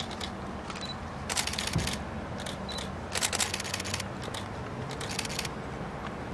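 Camera shutters clicking in three short rapid bursts over a low, steady hum.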